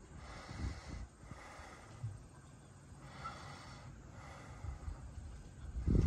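Soft, irregular low rumbles of air buffeting the microphone, strongest near the end, over a faint steady hiss.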